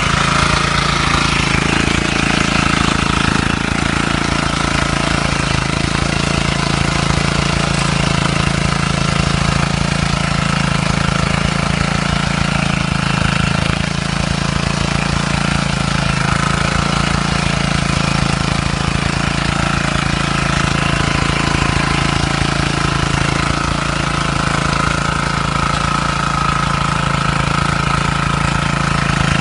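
Engine of a KAAN 53 S motor hoe (walk-behind rotary tiller) running steadily at an even speed.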